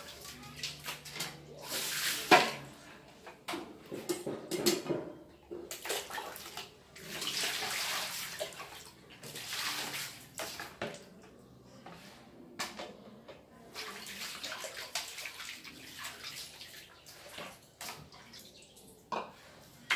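Water scooped from a plastic bucket with a plastic dipper and poured into a steel basin in several pours, with splashing as things are rinsed by hand. Knocks of plastic against plastic and metal come between the pours, the sharpest about two seconds in.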